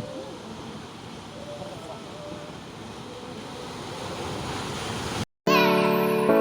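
Sea surf washing on the shore, a steady rushing noise that swells slightly, then cuts off abruptly about five seconds in. Piano music starts right after.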